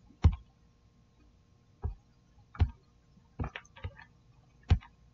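Laptop keyboard and trackpad clicks: about six single sharp taps at irregular gaps of about a second, with a quick run of three in the later middle.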